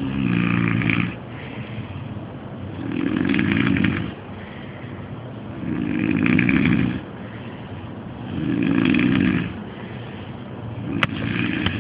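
A man snoring loudly in his sleep: five snores, each about a second long, coming roughly every two and a half to three seconds. A sharp click sounds near the end.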